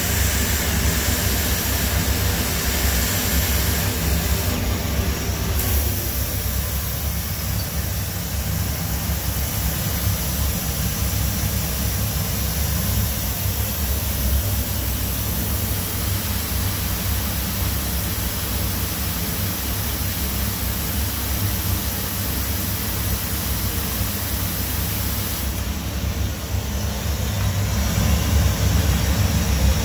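Hwacheon G1 graphite machining center running, a steady hum and broad rush of machine noise. A steady spindle tone is heard while the end mill cuts graphite and stops about six seconds in.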